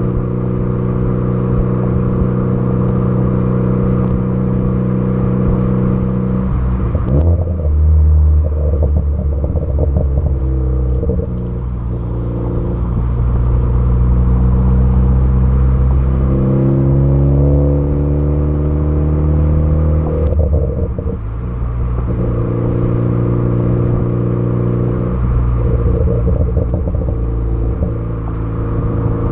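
Tuned turbocharged Ford Focus ST engine and exhaust, held at steady revs and then revved, its pitch rising in the middle. When the revs drop, twice, the exhaust crackles and pops: a tune set up for pops and crackles on the overrun.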